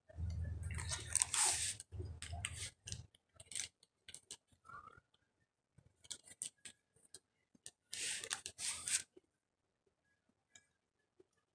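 Close-up handling noises: rustling and crinkling with scattered small clicks and crunches, as hands work through hair and handle a cardboard box of corn starch and its wrapper. A low muffled rumble runs under the rustling for the first few seconds, and there is a second burst of crinkling about eight seconds in.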